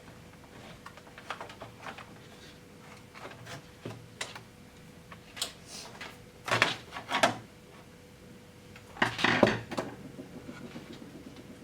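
Hard plastic and small parts being handled and set down on a work surface: scattered light clicks and knocks, with two louder bursts of clatter about halfway through and again a few seconds later.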